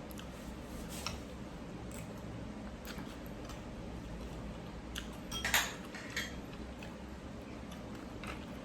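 Utensils clicking lightly and sparsely against a noodle bowl over a steady low background hum, with one louder, longer clatter about five and a half seconds in.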